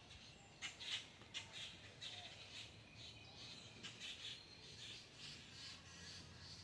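Faint bird chirping repeated throughout, with a few sharp clicks, the loudest about a second in and another near four seconds.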